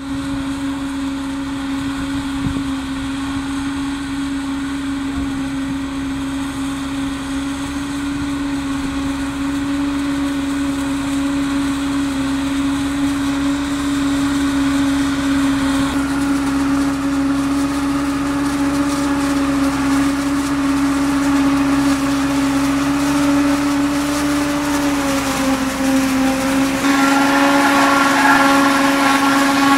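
Tractor-drawn Jumil JM 4200 forage harvester with a full-width header running while it chops standing corn, a steady machine hum at an even pitch that slowly grows louder as it approaches. Near the end the header is close by and the sound turns brighter and louder.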